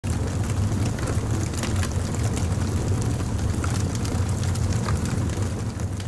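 Intro sound effect: a steady low rumble with scattered sharp crackles.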